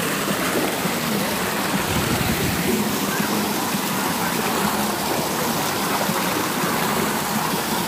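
Steady rush of water-park splash-pad water spraying and running over a shallow concrete pad, with splashing as children wade through it.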